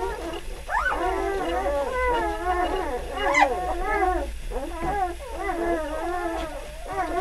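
A litter of three-day-old puppies whining and squealing at their mother's teats, many thin cries overlapping without a break. One sharper squeal stands out about three and a half seconds in.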